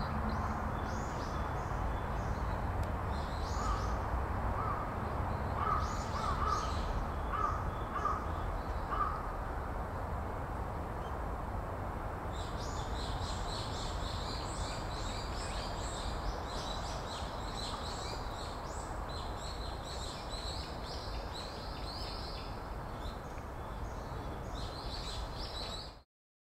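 Large-billed crows calling, a run of short repeated caws in the first part, over small birds chirping and singing in the trees. The small-bird song grows denser about halfway through. The sound cuts off just before the end.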